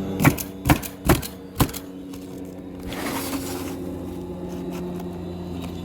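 Roofing nail gun firing four quick shots into shingles, about two and a half a second, followed by a brief hiss about three seconds in, over a steady mechanical hum.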